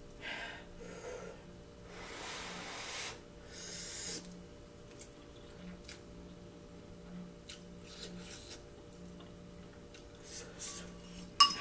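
Instant ramen noodles being slurped and chewed off a fork, with two long breathy slurps in the first few seconds, then small mouth and fork clicks; a sharp clink of the fork against the ceramic bowl near the end.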